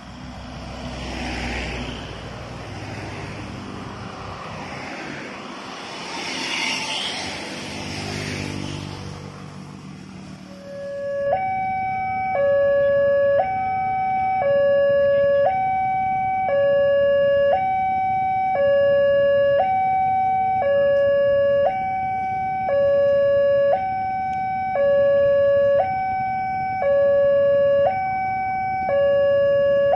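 A passenger train passing with a rumbling rush of noise for about the first ten seconds. Then an electronic two-tone railway warning signal starts and keeps alternating between a lower and a higher tone about once a second, the kind that sounds at Indonesian stations and level crossings as a train approaches.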